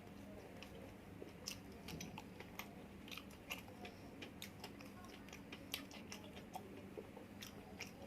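A person chewing and biting food: irregular, faint crunchy clicks and smacks of the mouth.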